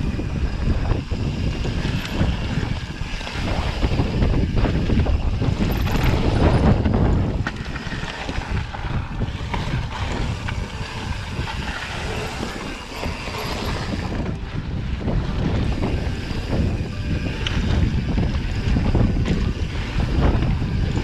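Mountain bike descending a loose gravel trail: wind buffeting the microphone over the crunch of tyres on gravel and the bike rattling over small rocks. It is loudest a few seconds in.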